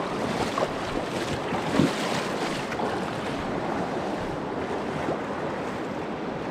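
Steady rush of mountain-river water with wind buffeting the microphone, and one short knock about two seconds in.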